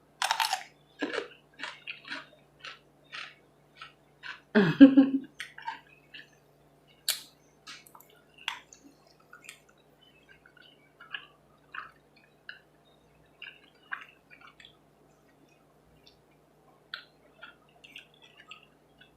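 Close-up wet chewing and lip-smacking of someone eating buffalo chicken wings: a string of short clicks and smacks, with one louder burst about four and a half seconds in.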